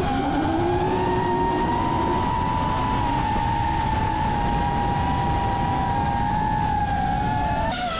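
FPV racing drone's motors and propellers whining steadily at a high pitch, drifting slowly up and down with throttle; the pitch jumps abruptly near the end.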